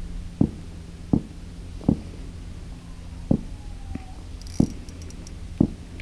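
A series of six short, dull knocks, irregularly spaced about a second apart, over a faint steady low hum.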